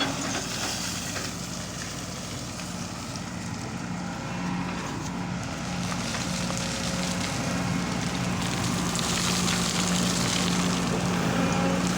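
Excavator's diesel engine running steadily with a constant low hum and a hiss over it, getting gradually louder, with the hiss stronger toward the end.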